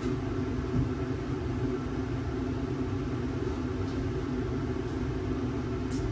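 A 1,000-watt room air conditioner running, a steady low hum with fan noise and no change.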